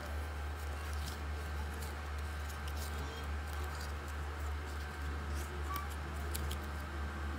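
Steady low hum with scattered small clicks and paper rustles from handling and flipping through a small paper instruction booklet.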